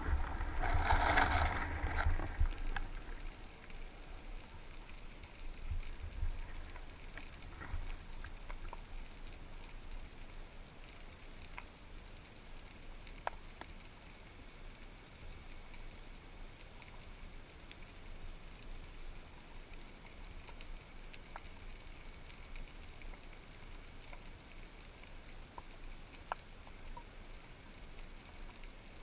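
Underwater ambience picked up by a camera submerged over a seagrass bed: a faint steady hiss with scattered sharp clicks, after a louder rushing noise in the first two seconds or so.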